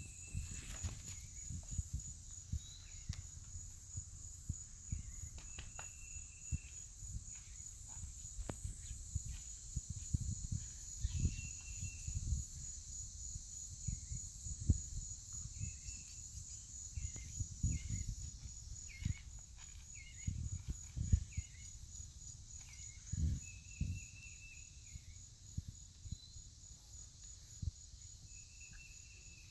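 A steady, high-pitched insect chorus of crickets or katydids with a fast even pulse, joined every few seconds by short chirps. Irregular low thumps and rustles run underneath.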